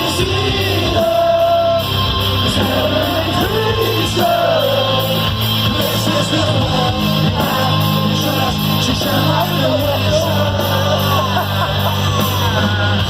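Live rock band playing loud, with a voice singing over guitars, bass and drums, heard from within the audience.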